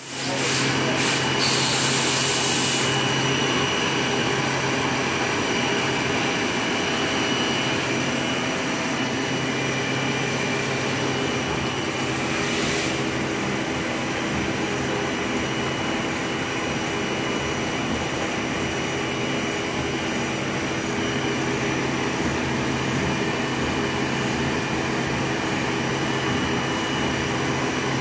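Haas TM-1 CNC vertical mill running a program: a steady machine whine with several held tones over the hiss of the spindle and coolant spray as it cuts. The hiss swells for the first few seconds and briefly again around the middle.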